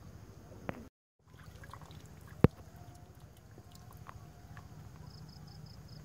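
A single sharp knock about two and a half seconds in, over a quiet steady background, with a smaller click before it and a brief cut to silence about a second in.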